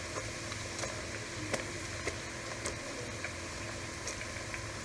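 Thin potato slices deep-frying in a pot of hot oil: a steady sizzle with scattered sharp pops and crackles.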